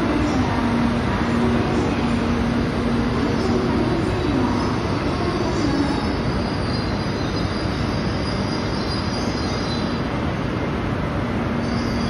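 JR East's ALFA-X (E956) experimental Shinkansen train rolling slowly alongside the platform as it comes in. A steady running rumble carries a low whine that shifts in pitch during the first few seconds, and a faint high squeal from about five to ten seconds in.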